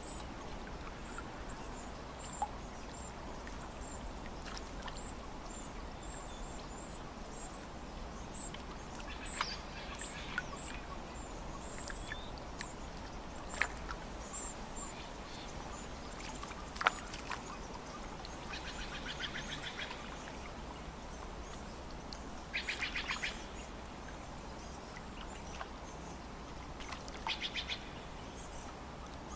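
Birds calling at a lakeside over a steady faint background hiss: high thin chirps repeat through the first half, a few sharp ticks come in between, and three short buzzy rattling calls sound in the second half.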